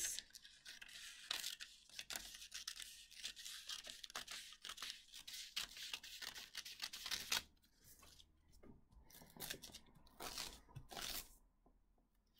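Scissors cutting along a drawn line: a dense run of quick snips, then a few slower, separate snips from about seven and a half seconds in.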